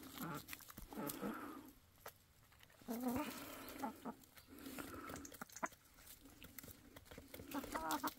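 Domestic hens clucking at close range, low calls coming in a few short runs, with scattered light taps.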